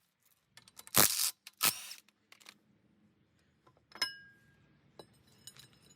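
Metal hand tools and bolts being handled at the flywheel: two sharp clicks about a second in, then a single ringing metallic clink about four seconds in, followed by a run of light ticks near the end.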